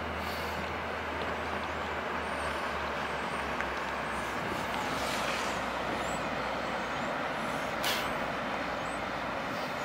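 Coast Guard response boat running past at speed: a low engine hum under a steady rush of water from its wake, with a brief louder hiss near the end.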